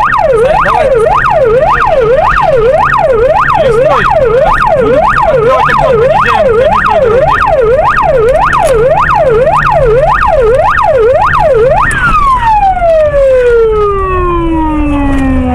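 Police patrol car's electronic siren in fast yelp mode, sweeping up and down about twice a second, with the car's engine running underneath. It signals the pursued car to pull over. About twelve seconds in, the yelp stops and the siren winds down in one long falling tone.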